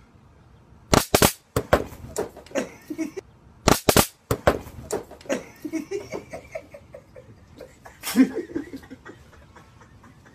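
Handheld stun gun crackling in two short bursts about three seconds apart, followed by laughter. Another sharp, loud outburst comes about eight seconds in.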